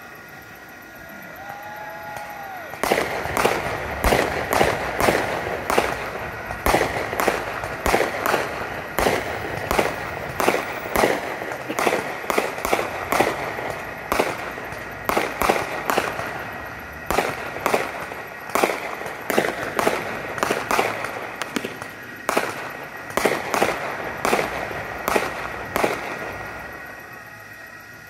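Fireworks going off in a rapid barrage of sharp bangs, about two or three a second, starting about three seconds in and dying away near the end.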